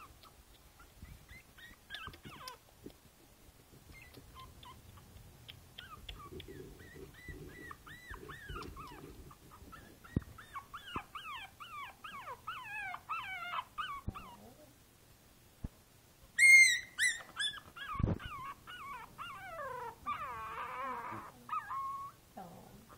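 Five-week-old Boston Terrier puppy whimpering and whining in a string of short, high-pitched cries. A louder, shriller yelp comes about two-thirds of the way through, followed by a brief thump.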